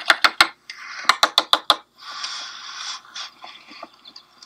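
Moist potting soil being scraped out of a flower pot: a quick run of sharp taps and knocks, then a longer scraping rasp, growing fainter near the end. The soil is from a compressed soil disc that was soaked in water until it expanded, then mixed.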